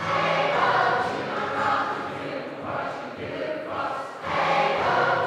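A large mixed choir of men and women singing a sea shanty together, with a brief break between phrases about four seconds in.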